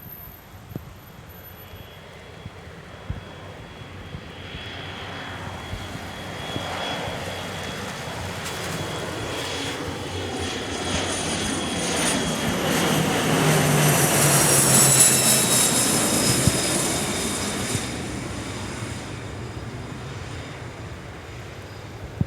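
HondaJet light business jet's twin GE Honda HF120 turbofans passing by. The engine noise grows louder to a peak about fifteen seconds in, with a high whine that falls in pitch as the jet goes past, then it fades.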